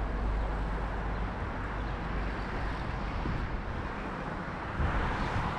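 Outdoor city street ambience with road traffic going by; a vehicle passes more loudly near the end.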